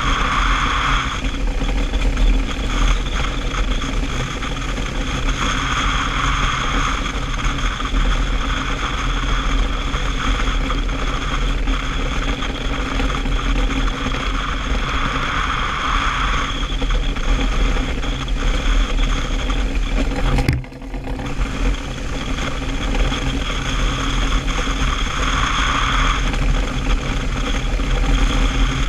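DN iceboat under sail: a steady rush of wind and the hiss and rumble of its steel runners over smooth ice, with a brighter hiss swelling about every ten seconds.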